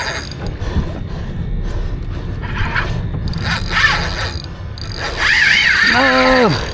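Spinning reel being cranked under load from a hooked amberjack, its gears and mechanism whirring and clicking. Near the end a person gives a long, drawn-out voiced sound whose pitch falls away.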